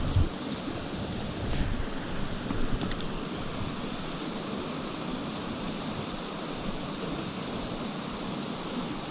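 A small gorge stream tumbling through its plunge pools and falls: a steady rush of moving water. There is a brief thump right at the beginning and a couple of faint clicks in the first few seconds.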